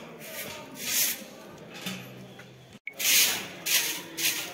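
Footsteps scuffing on gritty paving, a hissy crunch roughly every half second, broken by a short dropout about two-thirds of the way in.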